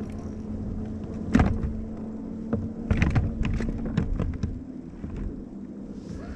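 Hollow knocks and clicks from handling the catch and gear on a plastic fishing kayak, likely stowing the fish in the cooler. One sharp knock comes about a second and a half in, then a cluster of clicks and knocks around three to four seconds in, over a steady low hum that stops about four seconds in.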